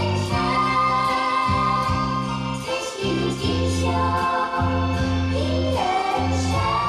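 Instrumental interlude of a slow ballad backing track between sung verses: a melody line held over bass notes that change about once a second, with no lead vocal.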